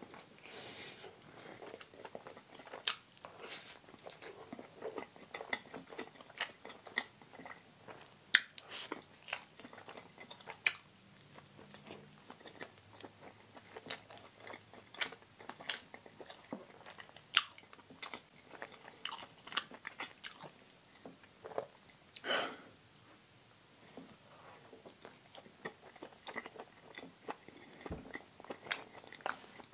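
Close-miked chewing and biting of a person eating, with irregular mouth clicks and smacks, several a second.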